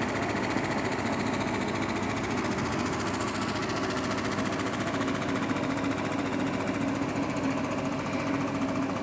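3100A high-frequency oscillatory ventilator running, its piston-driven diaphragm oscillating with a steady, rapid mechanical pulsing.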